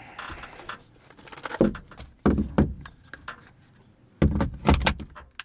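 A series of loud knocks and bangs from work on the boat: one about a second and a half in, two more around two and a half seconds, and a longer run of knocks about four seconds in, with a short hiss at the start.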